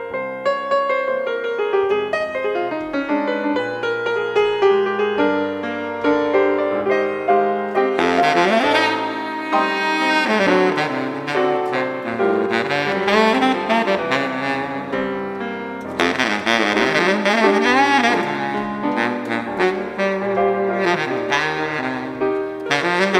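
Live jazz duo of alto saxophone and piano: the piano plays alone at first, then the saxophone comes in about eight seconds in with a bending, expressive melody over the piano accompaniment.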